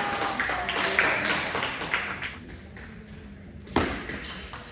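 Table tennis ball tapping and knocking in a hall: a few light taps in the first two seconds, then one louder knock near the end.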